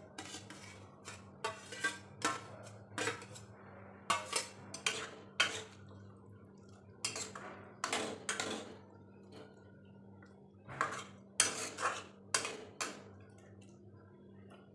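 A steel spatula clinking and scraping against a steel bowl and a nonstick pan as fried potato cubes are tipped into pea curry and stirred in. The knocks and scrapes come in short clusters with pauses between.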